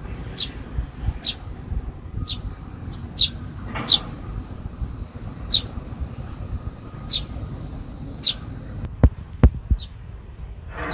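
Eurasian tree sparrows chirping: short, high single chirps about once a second over a low background rumble, with a few sharp clicks near the end.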